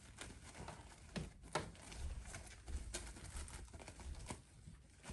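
Faint rustling of a stiff gele head-tie cloth as hands tuck and shape it, with a few scattered soft clicks and taps.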